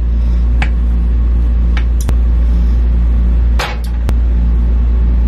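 A steady low rumble, with several light clinks and knocks of a utensil against a ceramic bowl as food is spooned into it.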